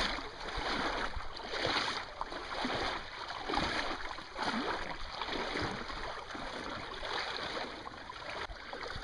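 Irregular sloshing and swishing of shallow water around a small boat, coming in uneven surges with no motor running.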